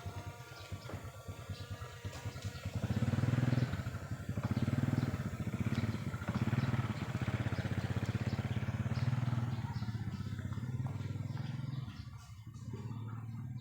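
An engine running, with its level rising and falling several times in the middle as if revved, then easing off near the end.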